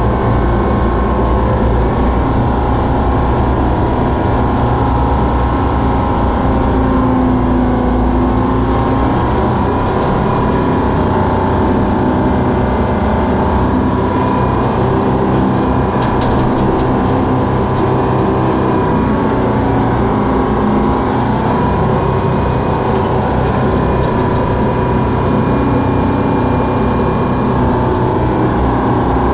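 Koehring 440 dragline's engine running steadily as the machine digs, heard loud from inside the operator's cab. Its pitch dips and recovers a few times as the bucket is hoisted, swung and cast.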